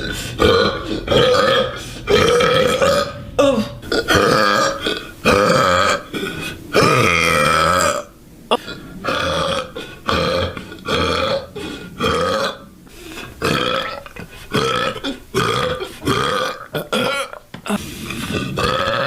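A woman burping over and over, one loud pitched belch after another about once a second, some of them drawn out for a second or more.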